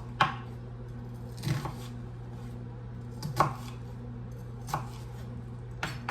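Kitchen knife chopping vegetables on a cutting board: about five separate strokes, unevenly spaced a second or more apart. A steady low hum, from a microwave oven running, sits under the chopping.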